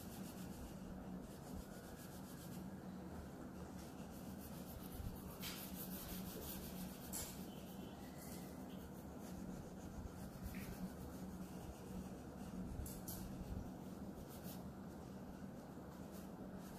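Oil pastel crayon rubbing on drawing paper in faint, continuous strokes, blending orange and yellow.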